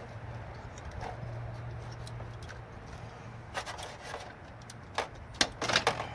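Sharp plastic clicks and knocks of wire connectors being worked loose and pulled off a CRT television's circuit board, starting about halfway through and bunching together near the end, over a steady low hum.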